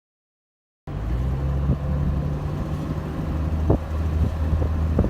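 Dead silence for about the first second, then a Jeep Cherokee XJ on the move: a steady low engine and road rumble with a few short knocks.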